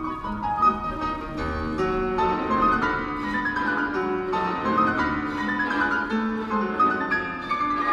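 Classical music for piano and orchestra playing through a Toyota Prius's car audio system, heard inside the cabin, with quick falling runs of piano notes over the strings.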